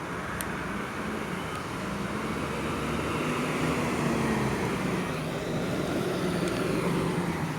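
Road traffic passing on a rain-wet street: a vehicle's engine hum and tyre noise that swell to their loudest about four seconds in, then ease off a little.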